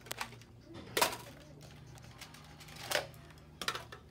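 Hard plastic clicks and clacks of Nerf toy blasters and their parts being handled and set down, a handful of sharp knocks with the loudest about a second in.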